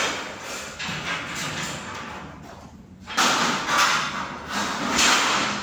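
Ceiling demolition: gypsum ceiling board being worked loose, a rush of scraping and knocking with thuds, loudest from about three seconds in.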